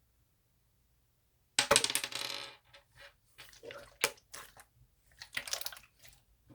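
Slime being pressed and squished by hand, crackling and popping: a loud crackling burst about a second and a half in, then a series of short sharp pops and clicks.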